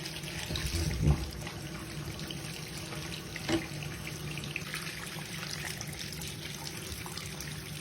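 Bathwater in a tub: a steady trickle of running water with small splashes, and two sharper splashes or knocks about one second and three and a half seconds in.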